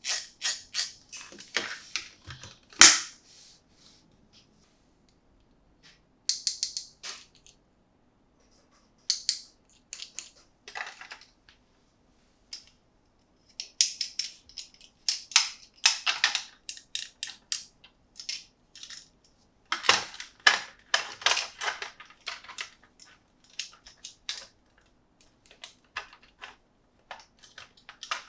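Toy packaging being handled and opened: irregular bursts of crinkling and sharp plastic clicks, with one loud snap about three seconds in.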